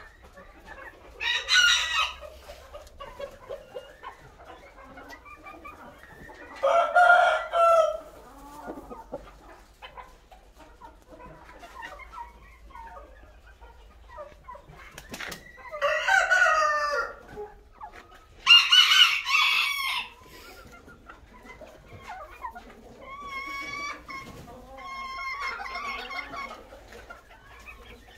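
Several aseel game roosters crowing in turn from their pens: four loud crows of a second or two each, some higher-pitched and some lower, then fainter calls near the end.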